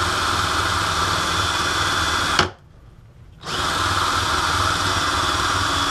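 Cordless drill spinning a wire cup brush against rusted motorcycle engine-mount brackets, scrubbing off the rust. It runs steadily, stops for about a second a little over two seconds in, then starts again.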